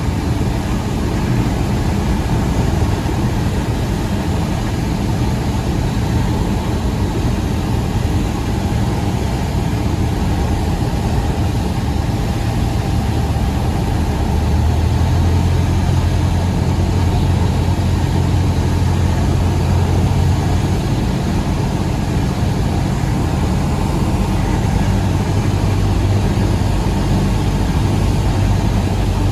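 Cessna 172's piston engine and propeller running steadily, its low note shifting and growing slightly louder about halfway through.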